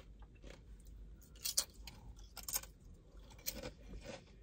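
Close-up chewing, with a few short crunches and mouth clicks spread through, as a tortilla chip is eaten.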